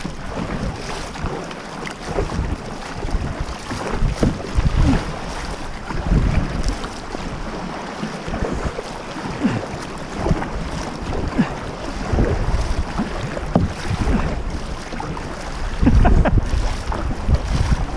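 Sea water sloshing and splashing against a kayak's hull and paddle as it is paddled along, with irregular gusts of wind rumbling on the microphone.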